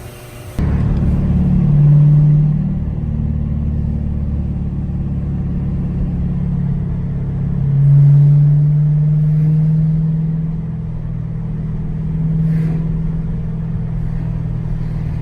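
Dodge Challenger Hellcat's supercharged 6.2-litre HEMI V8 running, coming in suddenly about half a second in. Its revs swell briefly twice.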